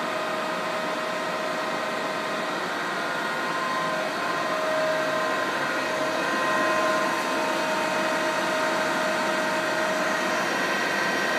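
Union BFT 90/3 horizontal boring mill running under power, its drives giving a steady mechanical hum with a whine of several steady tones. The whine shifts slightly partway through as the spindle and Z-axis move.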